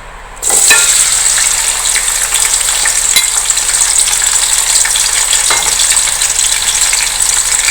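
Chopped onions dropped into hot oil in a cooking pot, starting to sizzle loudly with a sudden hiss about half a second in and frying steadily after that, with a few clinks as they are stirred.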